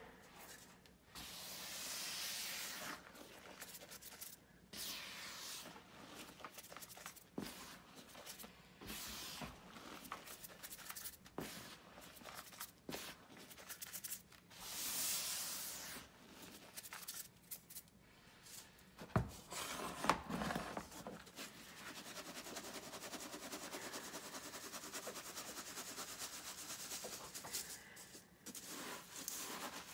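Hands squeezing and crushing powdered gym chalk in a bowl: soft crunching and rubbing in irregular surges, with a couple of sharp knocks about two-thirds of the way through. Later it turns into a steadier hiss as chalk is shaken through a wire-mesh sieve.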